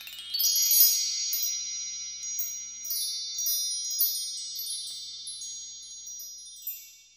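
Shimmering wind-chime-like intro sound: high ringing tones that swell in about half a second in and sustain, with scattered struck chime notes tinkling on top, slowly fading out near the end.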